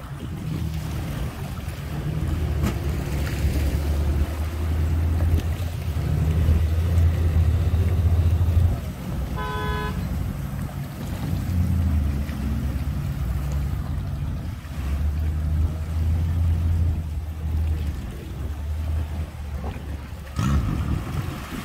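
A low engine rumble that swells and eases several times, with one short horn toot just under ten seconds in.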